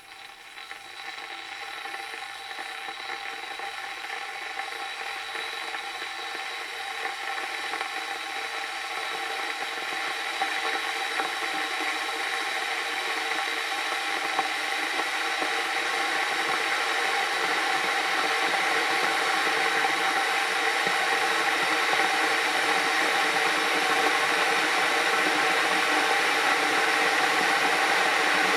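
Electric kettle heating water: a hissing rush with a faint steady whine that grows steadily louder as the water comes toward the boil.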